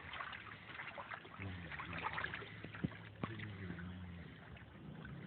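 Water splashing and trickling as a seine net is hauled in through the shallows, with two sharp knocks a little under three seconds in.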